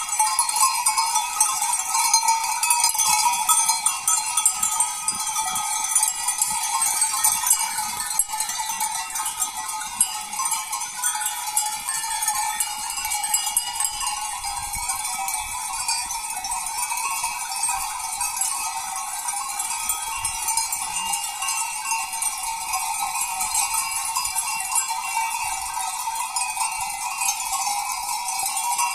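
Goat bells clanking in a steady, unbroken jangle as the goats graze.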